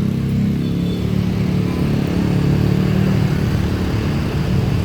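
Road vehicle engine running steadily at the roadside, a loud even drone with no horn sounding.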